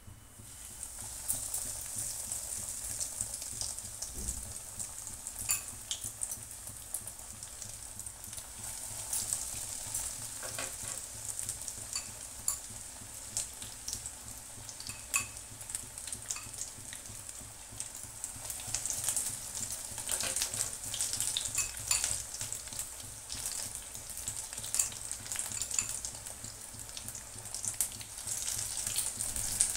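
Breadcrumb-coated paneer sticks deep-frying in hot oil in a kadhai: a steady sizzle full of small crackles. It swells just after fresh pieces are dropped in at the start and again near the end.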